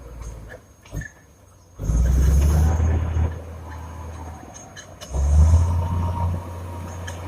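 Komatsu D70LE bulldozer's diesel engine working, a low rumble that goes quiet briefly near the start, then surges loud twice, about two seconds in and again about five seconds in, easing off after each.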